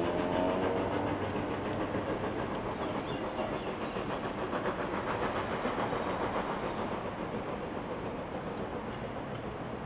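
NZR JA-class steam locomotive JA 1275 working up the line, not yet in view: a steady, dense noise of exhaust and running gear. A short pitched sound falls away near the start.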